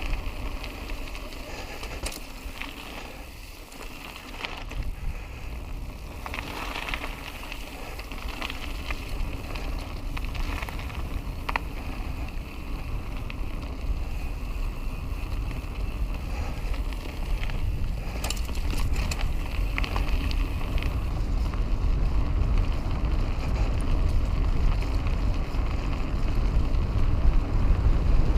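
Wind buffeting a helmet-mounted action camera's microphone while a mountain bike rolls along a trail, with tyre rumble and occasional clicks and rattles from the bike. The low rumble grows louder toward the end.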